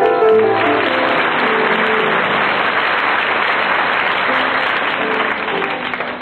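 Piano playing, then a burst of audience applause about half a second in that swamps it, with the piano still heard faintly under the clapping. The applause tapers off near the end.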